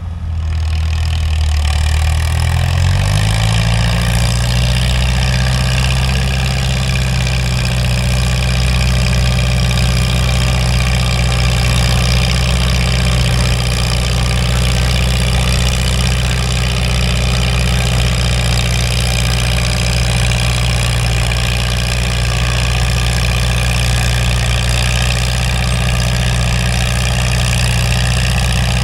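Vintage farm tractor engine revving up about two seconds in, then running at steady high revs under load while pulling a weight-transfer sled.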